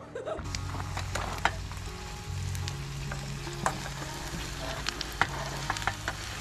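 Food frying in a pan with a generous amount of hot oil: a steady sizzle with scattered sharp pops and spatters, over a low steady hum.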